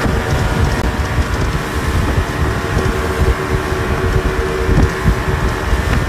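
Motorboat running at speed across open water: a steady engine drone under a loud, choppy rush of wind buffeting the microphone.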